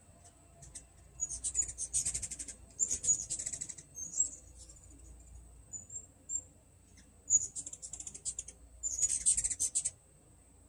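Hummingbirds chittering at the feeders: rapid, very high-pitched squeaky chatter in several bursts, the first two about a second in and the last two near the end. This is the chase chatter of birds squabbling over the feeders.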